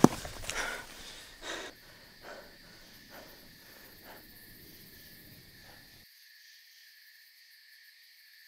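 Footsteps crunching on dry leaves and twigs at the start, then faint rustles and breathing over a quiet steady hiss. The lower sounds drop out abruptly about six seconds in.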